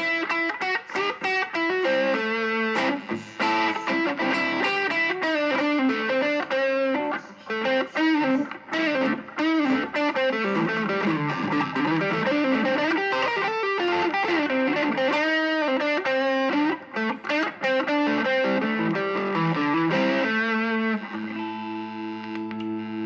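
Home-built Les Paul-style electric guitar (one-piece sapele mahogany body, ash top, rosewood fingerboard, budget pickups) played with distortion: quick lead lines with wavering, bent notes, then a chord left ringing near the end.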